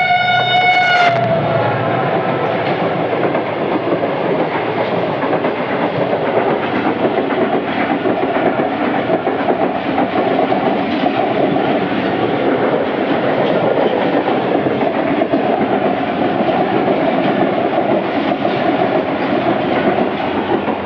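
A locomotive horn sounds and cuts off about a second in. After it comes the steady rumble and clickety-clack of a diesel train running along the track.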